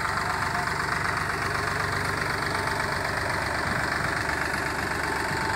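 Powertrac tractor's diesel engine running steadily at low revs with an even drone.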